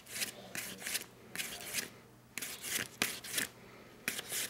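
Emery paper on a hand sanding block rubbed back and forth over the fresh weld seam of a 14-karat gold ring, smoothing it down after welding. It comes as a series of short scratchy strokes, with a pause about two seconds in.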